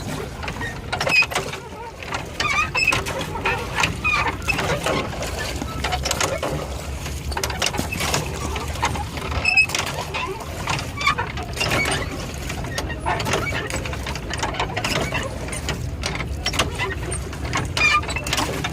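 A boat's drive mechanism clicking and creaking irregularly as it is worked, over a low rumble.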